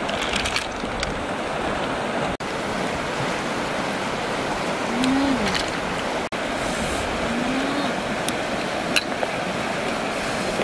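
Steady rushing of a fast-flowing muddy river, with a few light clicks as snail shells are handled.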